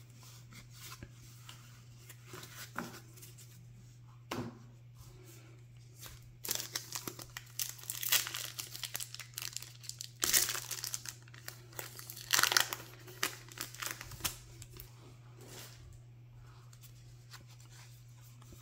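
A Lord of the Rings TCG Mount Doom booster pack wrapper being crinkled and torn open by hand: a run of crackling, tearing bursts through the middle, with two loudest rips. Before it, a few soft clicks of trading cards being gathered up.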